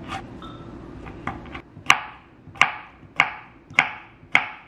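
Chef's knife chopping a cucumber on a wooden cutting board: after a short pause, five sharp, evenly spaced knife strikes on the board, about one every half second, starting about two seconds in.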